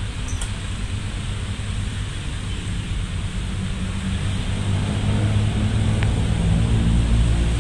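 Low diesel engine rumble growing louder from about halfway through, over steady wind noise on the microphone: a freight train's diesel locomotive approaching.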